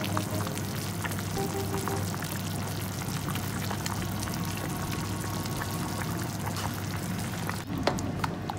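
A pot of pork-and-vegetable soup (tonjiru) bubbling at a simmer, with a dense crackle of small bubble pops and liquid running off a metal ladle, over soft background music. A sharp click comes near the end.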